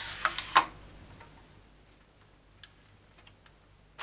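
Sharp plastic clicks of brochure-holder pockets and clips being snapped and hung together, several close together in the first second. A few faint ticks follow further apart.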